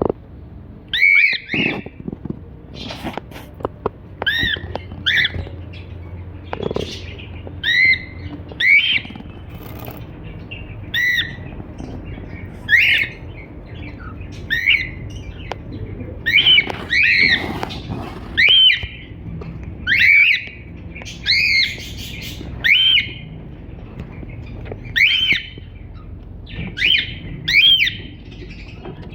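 Cockatiel calling: short arched chirps, one every second or so, with a few sharp clicks in the first few seconds.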